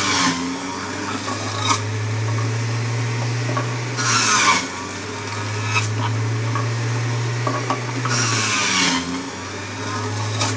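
Electric centrifugal juicer motor running with a steady hum, broken three times, about four seconds apart, by grinding as fruit is pushed down onto the spinning cutter disc. The hum dips under each load.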